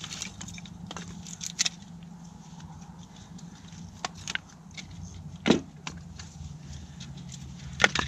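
Pieces of split firewood knocking and clattering together as kindling is picked out of a woodpile by hand, in irregular sharp knocks; the loudest comes about five and a half seconds in.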